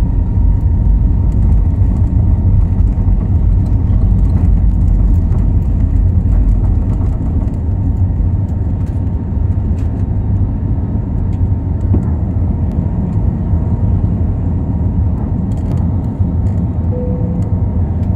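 Airbus A320neo cabin during the takeoff roll: the engines run at takeoff thrust with a steady high tone over a heavy low rumble from the runway. The deepest rumble eases in the second half as the aircraft lifts off.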